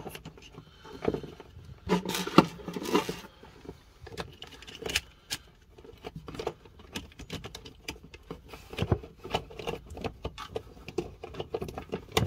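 Plastic socket unit and its cover being handled and pressed into a wall panel: a string of small clicks, taps and scrapes of plastic, with a busier stretch of rustling and knocking about two to three seconds in.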